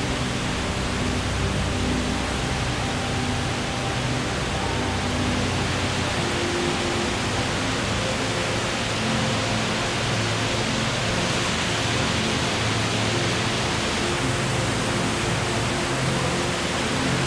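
Steady rush of falling water from a gorge waterfall, with soft background music underneath.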